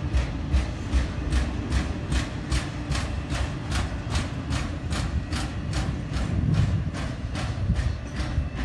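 Double-stack container train's well cars rolling past on steel rails, with a steady low rumble and a rhythmic clicking of wheels over the track about three times a second. The clicking weakens a little near the end as the last car moves away.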